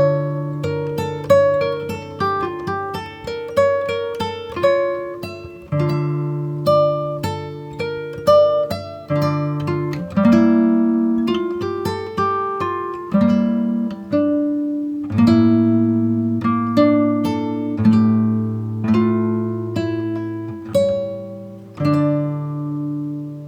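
Background music: a plucked acoustic guitar picking notes and chords.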